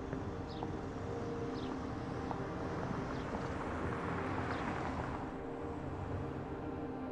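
Horror film sound design: a steady low ambient drone of several held tones. A rushing noise swells up, peaks about four and a half seconds in and fades away, and faint high chirps sound about once a second.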